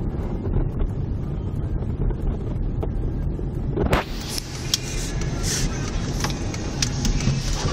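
A car driving along a snow-patched road, heard from inside the cabin: a steady low rumble of the engine and tyres. About four seconds in, a sudden brighter hiss with scattered clicks joins it.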